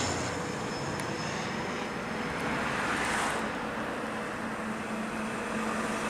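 De Havilland Canada Dash 8 Q400 twin-turboprop passing low overhead on landing approach, its engines and propellers making a steady rush with a faint steady hum.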